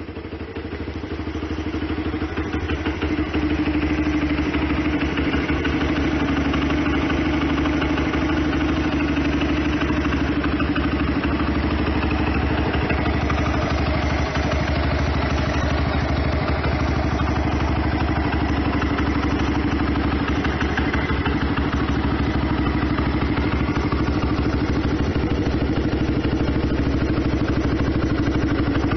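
Honda NSF100's single-cylinder four-stroke engine idling steadily through an aftermarket D5C silencer. It swells in over the first few seconds, then holds an even idle with no revving.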